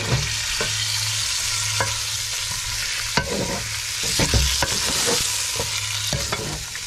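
Pork pieces and sausages frying in lard in a pot, a steady sizzle as the meat is seared brown, with a utensil knocking and scraping against the pot every second or so as it is stirred.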